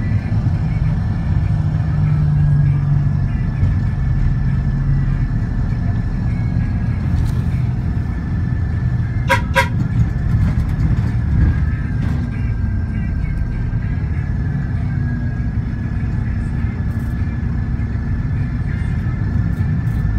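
Steady low rumble of a road vehicle heard from inside as it drives along, with a thin high whine. About halfway through, a vehicle horn gives two quick short toots.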